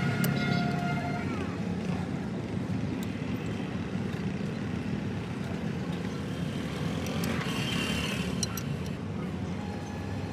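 Steady low rumble of motor vehicles, with a few sharp metallic clicks from a hand wrench working the hub nuts of a truck wheel, most of them in the second half.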